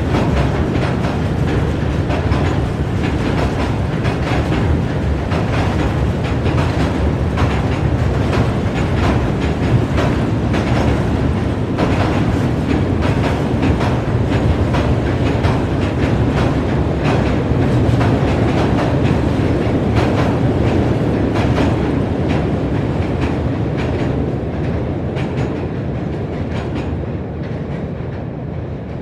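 Large freight train rolling slowly across a steel bridge, heard from underneath. A deep steady rumble is broken by frequent sharp clacks of wheels over the rail joints, and the sound slowly fades over the last few seconds.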